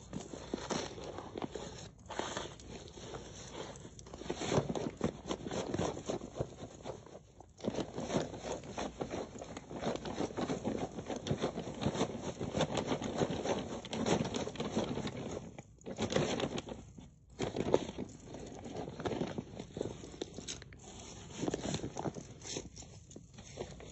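Coarse bath salt and rice grains crunching and crackling as they trickle from a hand onto a heap: a dense run of tiny clicks with a few short breaks.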